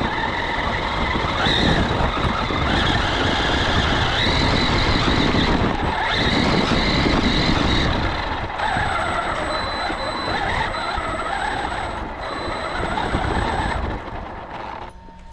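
Traxxas Maxx WideMaxx brushless 4WD RC monster truck driving, its motor and drivetrain whining up and down with the throttle over a rough rush of tire noise. The sound drops away about fourteen seconds in.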